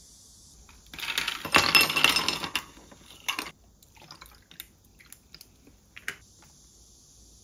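Water poured from a glass bottle over ice cubes in a glass mug, splashing and clinking loudly for about a second and a half, then a short second splash, followed by scattered small clicks and ticks as the ice settles and cracks.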